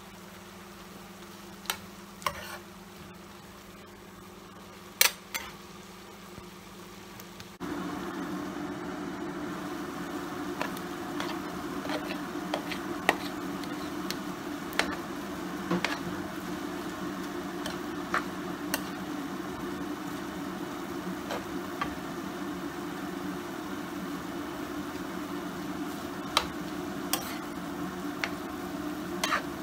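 Prawn, chicken and vegetable stir-fry sizzling in a frying pan, with a metal spoon clicking against the pan now and then. The sizzle jumps suddenly louder about eight seconds in, over a steady low hum.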